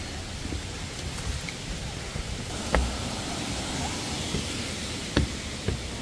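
Footsteps on the trail and wooden stair steps: a few sharp knocks, the loudest about halfway through and two more near the end, over a steady rushing hiss of a mountain stream.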